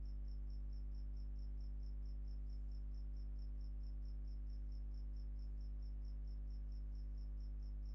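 An insect chirping steadily in short high-pitched pulses, about five a second, over a constant low hum.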